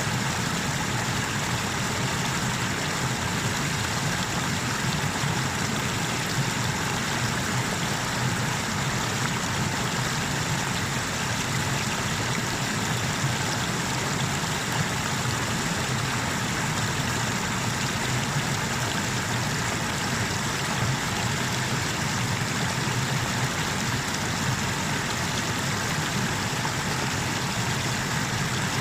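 Small river waterfall rushing steadily: an even, unbroken noise of falling water.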